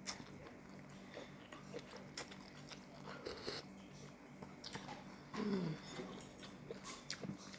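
Close-up eating sounds: noodles slurped and food chewed, with a steel spoon and fork tapping and scraping a ceramic soup bowl in scattered light clicks. A brief falling vocal sound from the eater comes about two-thirds of the way in.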